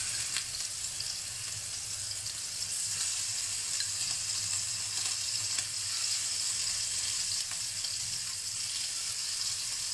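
Minced-pork patties sizzling in hot oil in a frying pan, a steady frying hiss that grows a little louder about three seconds in as more patties go into the pan.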